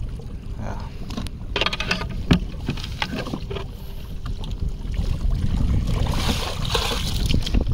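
Sea-Doo FishPro Trophy personal watercraft running at trolling speed, a steady low rumble with water rushing and splashing along the hull. There is a sharp knock a little after two seconds.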